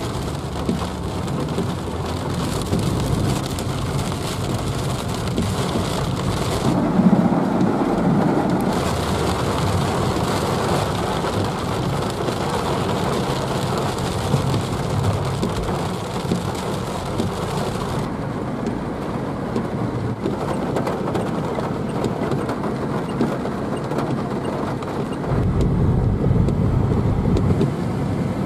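Heavy rain falling on a moving car's roof and windscreen, heard from inside the cabin, with tyres hissing through water on a flooded road. The noise swells lower and louder about seven seconds in and again near the end.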